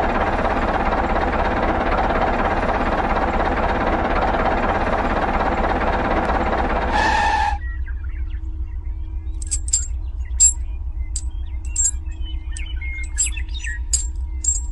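A dense, steady drone with many pitched layers that cuts off abruptly about seven and a half seconds in. Then a low hum with a faint steady tone, under scattered short high chirps and clicks like birdsong.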